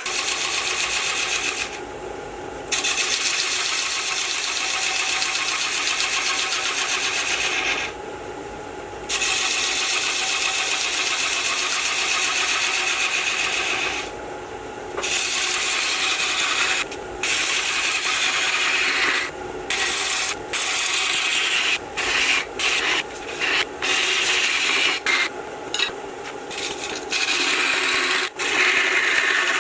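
A tool held against wood spinning on a lathe makes a dry rasping hiss. It comes in passes of about five seconds with short breaks, then shorter, quicker passes in the last third, over the lathe's steady hum.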